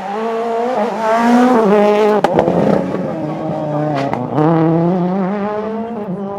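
Rally car engine at high revs, its pitch climbing and dropping in steps as it shifts gear and lifts off for a corner, with a couple of sharp exhaust cracks in the middle.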